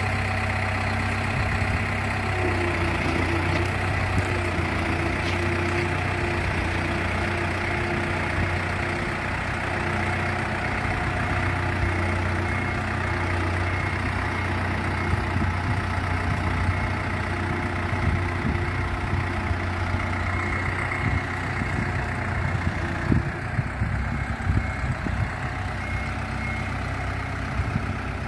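A large engine running steadily at idle, with a steady low hum and a faint higher whine over it. A few louder knocks come near the end.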